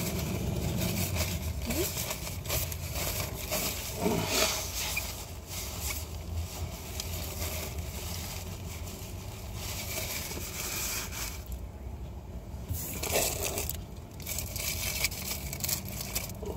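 Paper takeout bag rustling and crinkling as it is handled, in irregular bursts over a steady low rumble.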